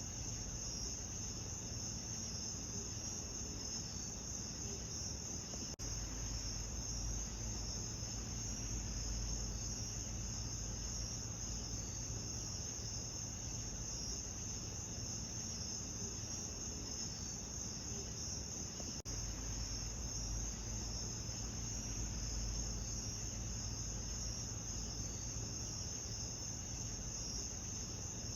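Steady, high-pitched insect chorus over a low rumble, with two very brief dropouts about six and nineteen seconds in.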